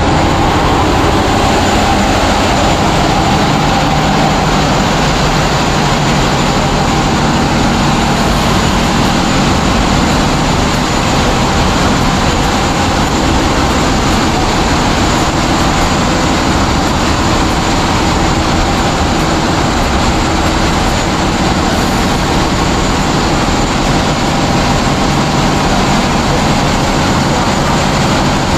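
Diesel engines running steadily in a ship's engine room: a loud, constant machinery drone with a steady low hum.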